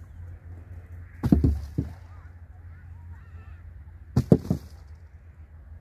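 Heavy knocks from work on a wooden raised-bed frame. They come in two clusters of three or four: one about a second in and one about four seconds in. A faint wavering bird or animal call sounds between them, over a steady low hum.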